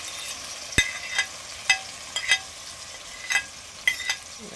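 Food frying in hot oil in a Dutch pot, a steady sizzle, with about seven sharp metal clinks of a cooking utensil against the pot as it is stirred and turned.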